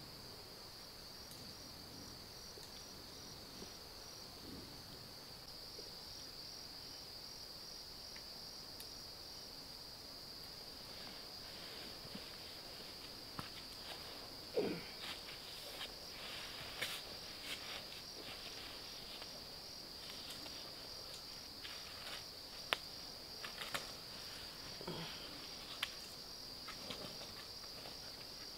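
Steady, high-pitched chorus of night insects trilling without a break. From about a third of the way in come scattered sharp clicks, snaps and rustles of sticks and embers being handled at a campfire.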